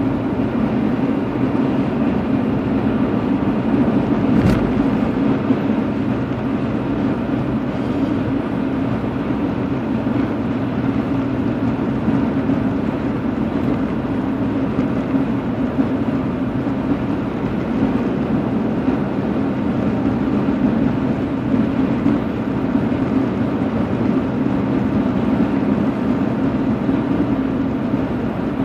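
Steady road and engine noise heard from inside a car's cabin while driving on a highway, with one brief click about four and a half seconds in.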